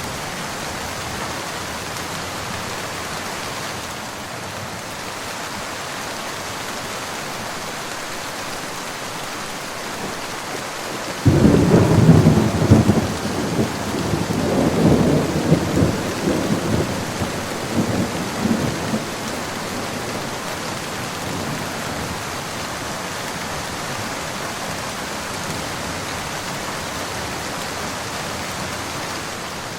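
Steady rain hissing, with a clap of thunder about a third of the way in that starts suddenly and rumbles on in rolling waves for about eight seconds before fading back into the rain.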